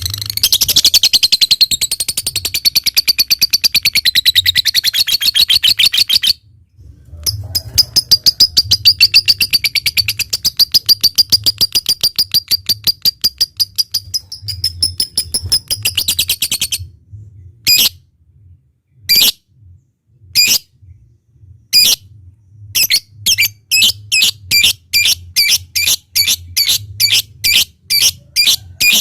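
Lovebird song: two long runs of fast, shrill chattering, the drawn-out 'ngekek', broken by a short pause. Then single sharp ticks, the 'ngetik', spaced at first and quickening to about three a second.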